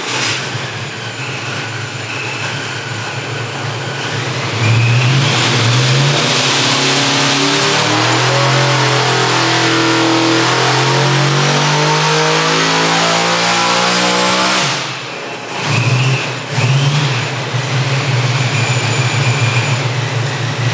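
Carbureted V8 with a belt-driven centrifugal supercharger on an engine dyno, running at low speed, then going to full throttle about four and a half seconds in for a dyno pull: the engine note climbs steadily for about ten seconds with a rising high whine above it, then cuts back suddenly. After that it runs at low speed again with a couple of short revs.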